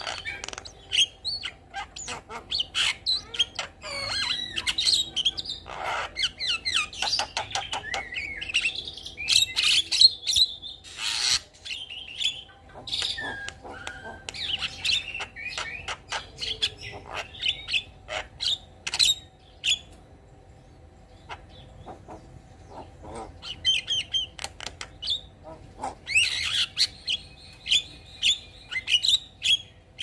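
Javan myna singing a busy, varied song of whistles, chattering notes and sharp clicks. The song pauses for a few seconds about two-thirds through, then ends in a quick run of repeated notes.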